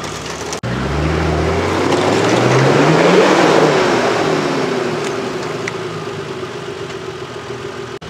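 Nissan GU Patrol's engine working under load off-road, the revs climbing over about two seconds and then easing back down, with the tyres scrabbling in loose dirt.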